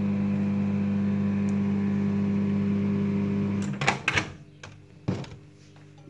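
LG microwave oven running with a steady electrical hum that cuts off just under four seconds in. A few sharp clacks follow as the oven door is released and opened.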